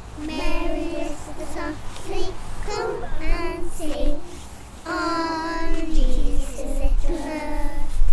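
Young children singing a song together, with a short break for breath about four and a half seconds in.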